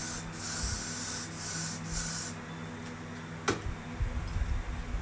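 Spray hissing in three long bursts over the first two seconds or so, then a sharp click and some low handling knocks near the end.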